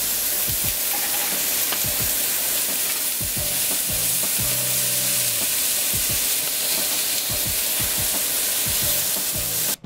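Diced vegetables sizzling in a hot, oiled frying pan as they are stirred, with short knocks of the stirring among the steady sizzle. The sizzle cuts off suddenly just before the end.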